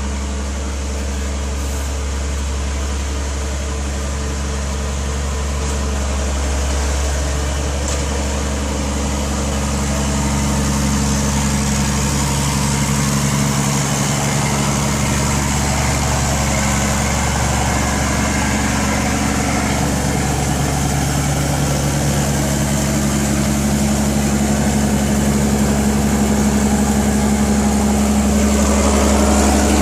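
Caterpillar 12E motor grader's diesel engine running steadily with a low hum, slowly getting louder.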